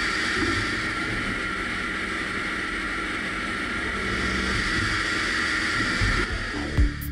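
A CLX 350 turning centre's driven tool running a HAIMER Mill multifunction end mill, chamfering and centre-cutting 1.2343 tool steel under flood coolant: a steady hiss of the cut and coolant spray with a high whine running through it. About six seconds in, the machine sound fades and electronic music with a heavy beat begins.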